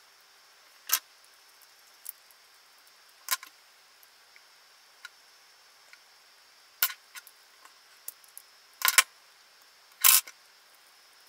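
Scattered small clicks and taps of a plastic wall plug, its metal pins and terminal screws being handled while a cable is wired into it. The two loudest knocks come near the end.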